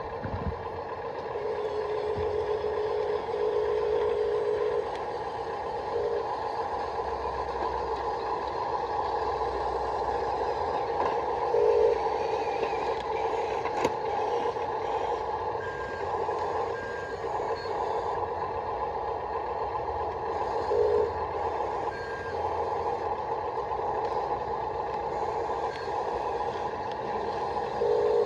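Stock electric gear motors of a toy RC wheel loader (Top Race TR213 / Huina) whining steadily as it drives. A few short, lower-pitched bursts come and go as other motors start and stop.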